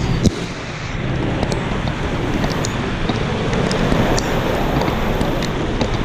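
Steady rushing noise of flowing floodwater, with scattered small clicks or splashes.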